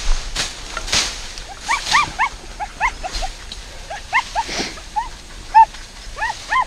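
Hunting dog yelping at a burrow in a quick run of short, high yips, about three a second, starting about a second and a half in. Rustling in dry brush comes before the yelping.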